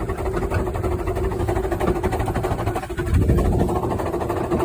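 A train running, heard from on board: a steady engine hum over a low rumble, with a brief lull about three seconds in.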